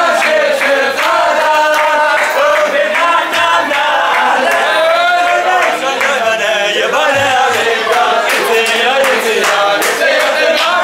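A group of young men singing a Chassidic song together loudly in unison, with sharp hand claps scattered through it.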